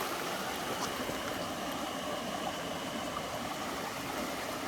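Mountain stream running: a steady rush of flowing water.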